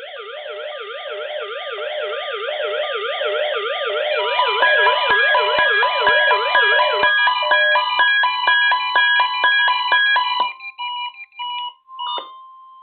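Several NOAA weather radio receivers sounding their alert alarms, set off by the Required Weekly Test signal: overlapping warbling siren tones that grow louder, joined about four seconds in by beeping at about two beeps a second. The alarms stop a couple of seconds before the end, leaving a few beeps and a steady tone.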